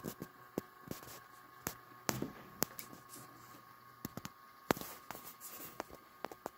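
Model Class 47 diesel locomotive running slowly over pointwork: irregular sharp clicks of its wheels crossing rail joints and points, with a faint steady whine underneath.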